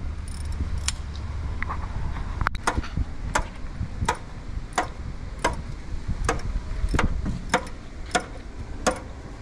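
Steady, evenly spaced mechanical clicking, about three clicks every two seconds, over a low rumble.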